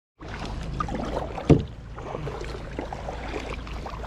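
Water lapping and splashing around a kayak, with small ticks and one loud knock about a second and a half in.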